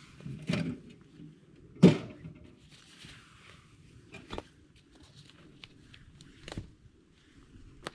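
Camp gear being handled: a metal ammo-can stove is lifted and moved and a rolled bundle is picked up, giving five separate knocks and clunks, the loudest about two seconds in, with light rustling between.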